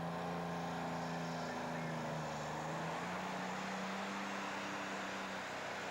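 Pulling tractor's engine running hard under heavy load as it drags the weight sled, its pitch holding fairly steady.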